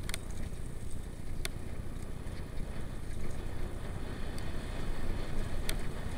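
Mountain bike rolling fast down a dirt forest trail, heard through a bike-mounted camera: a steady low rumble of tyres on dirt and jostling, with a few sharp clicks from the bike, one about a second and a half in and another near the end.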